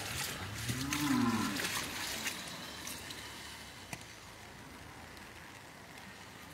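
A cow mooing once, a single low call about a second in that rises and then falls in pitch, over a steady rush of floodwater.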